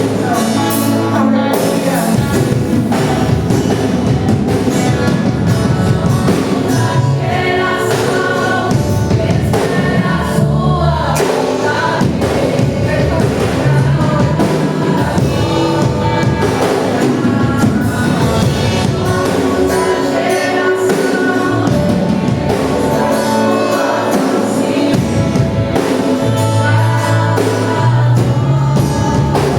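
Live worship band with several singers performing a gospel song, steady and full throughout.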